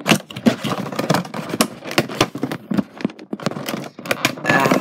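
A cardboard Funko Pop box and its clear plastic insert being handled and opened: a quick, irregular run of clicks, taps and crinkly scraping, busiest near the end.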